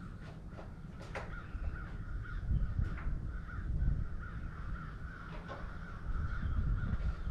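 Crows cawing over and over in the background, over a louder low rumble.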